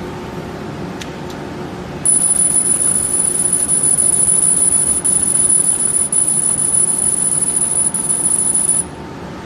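CO2 galvo laser kiss-cutting printed labels: a loud, steady, very high-pitched whine starts about two seconds in and cuts off shortly before the end. It sits over the steady hum of the machine's cooling fans.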